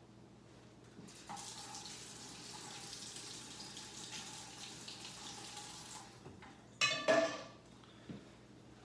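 Kitchen faucet running for about five seconds, a steady hiss of water, then a loud clatter of two sharp knocks about seven seconds in.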